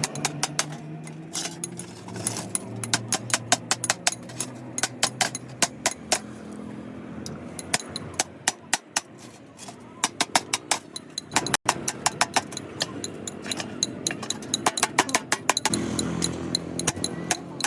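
Many sharp, irregular taps and clicks of hand-tool repair work, over a low motor hum that fades after the first few seconds and comes back near the end.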